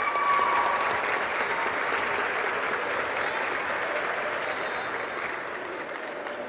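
Crowd applauding: a steady round of clapping that slowly dies down toward the end.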